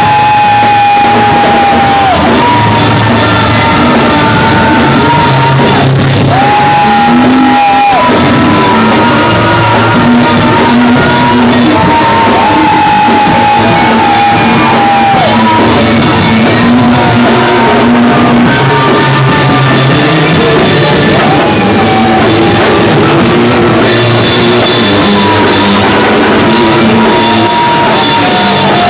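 Live garage-punk noise rock band playing loud, with distorted electric guitars, bass and shouted vocals. A high held note recurs every few seconds.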